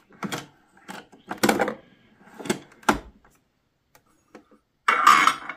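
Several separate knocks and clatters of household objects being handled, with a short scraping or rustling burst near the end.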